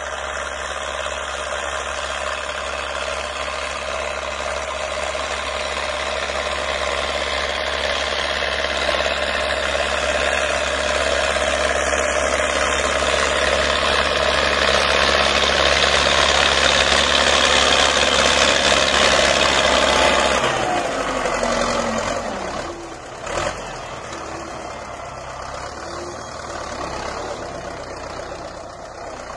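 Belarus MTZ 820.2 tractor's four-cylinder diesel engine running under load while pulling a reversible plough, growing louder as it comes closer. About twenty seconds in the engine note falls and it runs more quietly, and a single short knock follows soon after.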